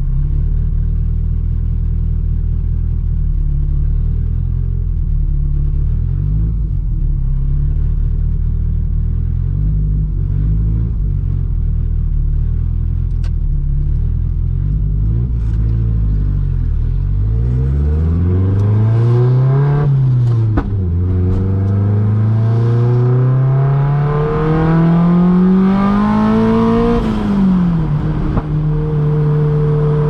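Turbocharged 1.8T four-cylinder engine of a Mk2 Golf GTI, run at low boost of about 0.7 bar, cruising at a steady pitch and then pulling. The pitch climbs for a few seconds, drops sharply at an upshift about 20 seconds in, climbs again in the next gear, and drops at a second upshift near the end, after which it holds steady.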